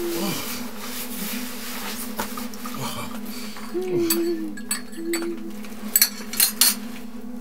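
A teaspoon clinking against a china teacup and saucer: a few light clinks, then a quick cluster of sharp clinks about six seconds in. Under it runs a steady low buzzing hum with wavering tones.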